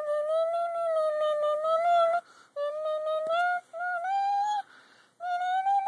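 A young boy singing long held notes without clear words, in four phrases with short breaks between them. The last phrase is a little higher in pitch.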